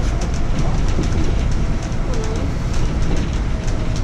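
Downtown street noise heard while walking: a steady heavy low rumble of traffic with a faint regular ticking high above it, and a faint voice briefly near the middle.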